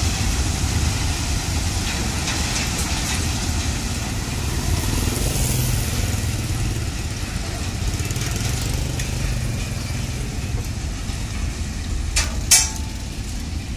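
Train of ballast hopper wagons rolling slowly past on new track: a steady low rumble and rattle of wheels and spreading stone. A short sharp sound stands out near the end.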